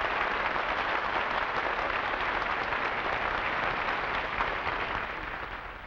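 Studio audience applauding, a dense, even clatter of clapping that fades near the end.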